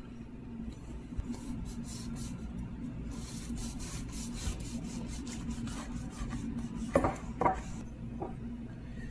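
Knife sawing back and forth through the crust of a seeded loaf on a wooden cutting board: quick, repeated rasping strokes in two runs. Two knocks come near the end.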